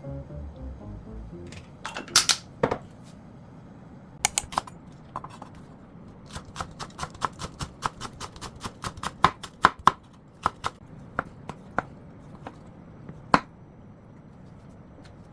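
A kitchen knife chopping on a cutting board: sharp knocks, a few at first and then a steady run of about three to four a second, with a last louder knock near the end. Background music fades out at the start.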